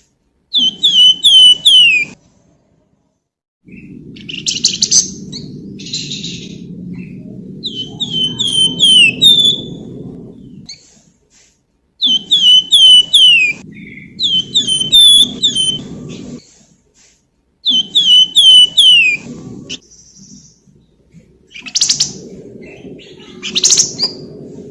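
Flamboyan (wergan Jawa) songbird singing: quick runs of four or five clear, down-slurred whistles repeated several times, mixed with scratchy chattering notes. A low steady rumble sits beneath much of the song.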